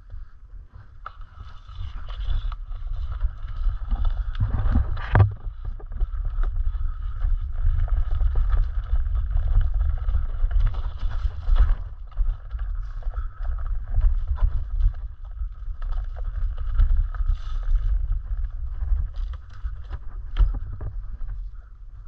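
Low, uneven rumble of a board rolling over a dirt trail, with wind buffeting the microphone and scattered crackles of twigs and leaf litter under it. Sharp knocks from bumps about five seconds in and again near the end; the first second is quieter, before the board gets going.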